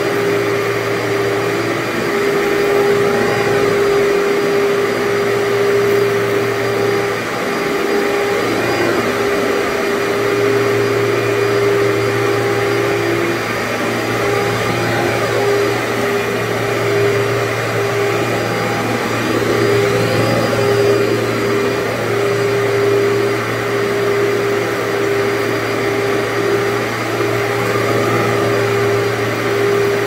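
Workhorse commercial upright vacuum cleaner running steadily on carpet as it is pushed along, a constant motor drone with a steady tone over it. It is doing the dry-soil vacuuming of the carpet, pulling loose grit into its canister.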